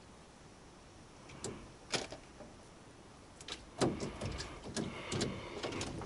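Fishing tackle being handled: a spinning reel and rod clicking, with two sharp clicks early, then a busy run of clicks and rattles from about three and a half seconds in as line is wound in.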